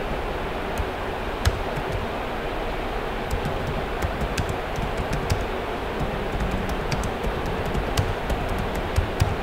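Computer keyboard being typed on: scattered, irregular keystroke clicks over a steady background hiss.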